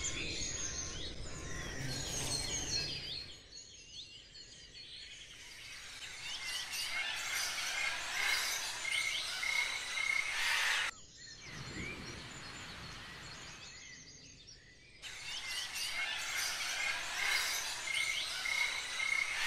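Birdsong ambience: many birds chirping and calling over one another in short rising and falling whistles. The sound cuts off abruptly about halfway through and comes back a few seconds later.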